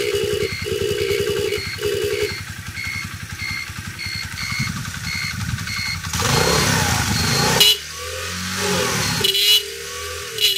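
Hi Speed CD-70 motorcycle engine running with no battery or capacitor connected. Its electric horn gives three short blasts in the first two seconds while the turn-signal beeper sounds about twice a second. About six seconds in the engine is revved, and its pitch rises and falls after that.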